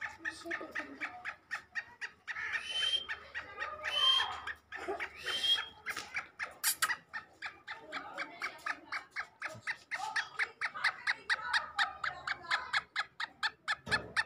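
Caged male black francolin calling in a rapid, even run of short chirping notes, about five a second, broken by three louder, harsher calls a few seconds in. One sharp click comes near the middle.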